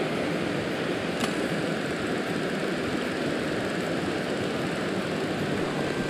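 Steady rushing of a shallow mountain stream running over stones close to the microphone, with one sharp click about a second in.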